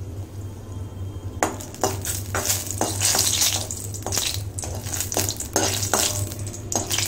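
Dried red chillies sizzling in hot oil in an aluminium kadai, with a steel spoon scraping and clinking against the pan as they are stirred, starting about a second and a half in.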